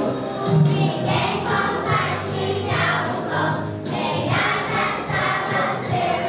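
Music: a choir singing a song over instrumental accompaniment.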